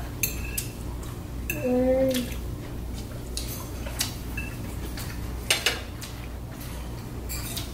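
Fork and knife clinking and scraping on plates during a meal, in scattered short clicks, with a brief voice sound about two seconds in.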